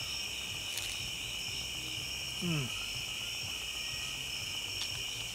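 Steady chorus of night crickets chirping. About halfway through there is one short, low, falling sound, and there are a couple of faint clicks.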